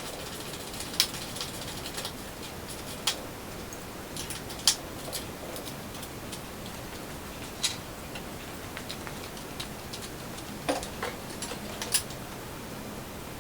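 Scattered sharp, light clicks and taps at irregular intervals, one every second or two, over a faint steady hiss.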